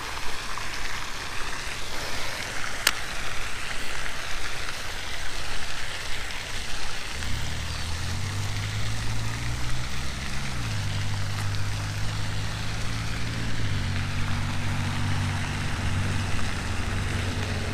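Pond fountain splashing steadily, a constant rushing hiss of falling water. About seven seconds in a low mechanical hum joins it and shifts pitch twice. There is a single sharp click about three seconds in.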